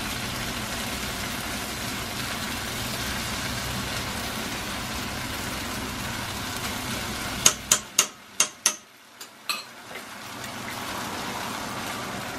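Garlic, ginger, chilli and black bean paste sizzling steadily in a frying pan as oyster sauce is spooned in. About two-thirds through comes a quick run of sharp clicks and taps, some seven in two seconds, from the metal spoon and sauce bottle being handled over the pan.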